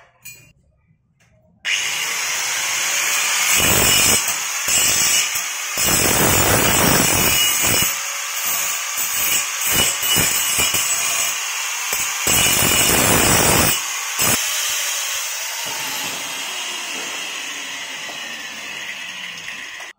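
Angle grinder starting up about two seconds in and cutting a stainless steel tube clamped in a vise: a steady high whine that turns louder and harsher in several bursts as the disc bites into the metal, then runs free and slowly fades over the last few seconds before stopping.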